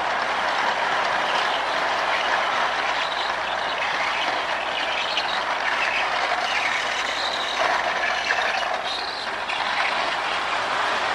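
Marx Commodore Vanderbilt toy electric train running on its track with a long string of small passenger cars: a steady whirring rattle of the pre-war motor, fitted with new brushes, and of the wheels on the rails.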